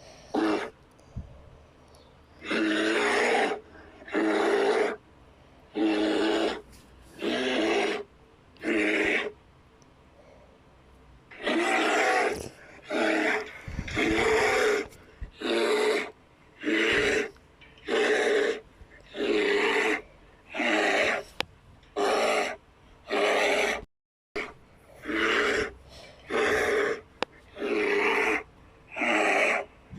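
A rapid series of short custom-made Godzilla roar and growl sound effects. Each is under a second long, they come about once a second with quiet gaps between them, and a few fall in quick pairs.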